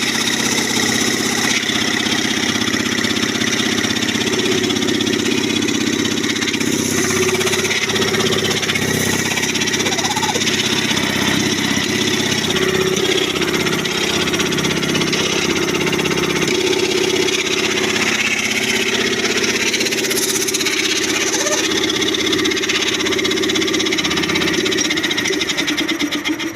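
20 hp reciprocating air compressor with a 120 mm cylinder running steadily on its test run: a constant loud mechanical hum with a hiss over it.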